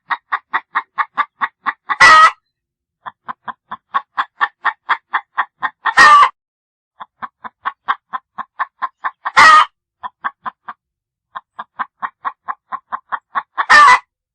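Hen cackling: runs of quick, evenly spaced clucks, about six a second, each run ending in one loud drawn-out squawk, four times over.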